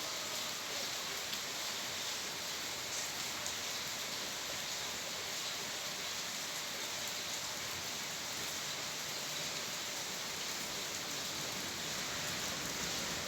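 Steady rain falling, a continuous even hiss with a fine patter of drops and no thunder.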